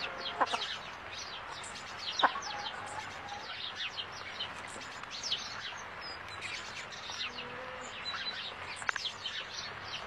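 A busy chorus of small birds chirping, many short high notes dropping quickly in pitch, overlapping without a break. A few sharp clicks stand out, the loudest about two seconds in.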